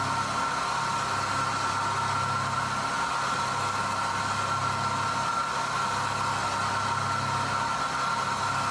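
Steady machine hum with a constant high-pitched whine over a low drone, unchanging throughout.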